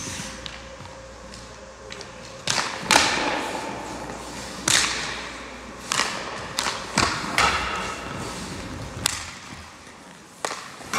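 Hockey pucks being shot with sticks and striking a goalie's pads and the rink boards: several sharp cracks and thuds at uneven intervals, each echoing in the arena, the loudest about three seconds in.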